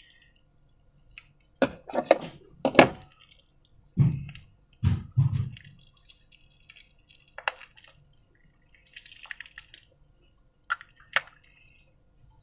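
Slime being handled, heard as a series of short wet squelches and plops with a few sharp clicks and taps in between. The heaviest plops come about four to five seconds in.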